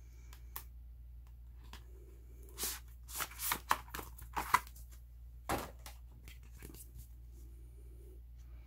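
Cardboard and paper rustling and scraping in a series of short bursts as a photobook album is slid out of its white cardboard sleeve.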